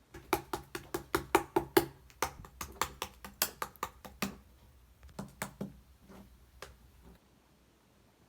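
Slime being squeezed and poked by hand, making sharp popping clicks, about five a second at first, then fewer and more spaced out until they stop near the end.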